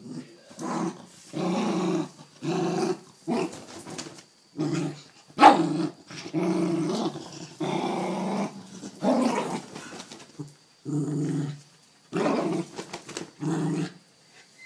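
Small white fluffy dog play-growling at a blanket it is tugging and mouthing, in a run of short growls with brief pauses between them. One sharper, louder sound comes about five and a half seconds in.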